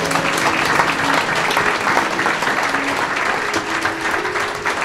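Applause from a roomful of guests, many hands clapping at once in a dense, steady patter.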